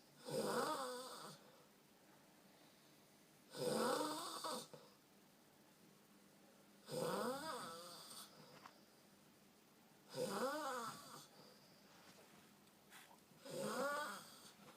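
Snoring: five snores, one about every three seconds, each lasting about a second with a breathy rasp and a wavering pitched tone.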